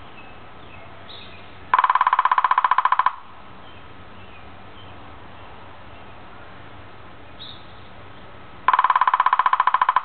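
Downy woodpecker drumming on a hollow dead timber bamboo cane. There are two rapid rolls, one lasting about a second and a half starting a couple of seconds in and another starting near the end, and the cane rings with a steady pitch under each roll.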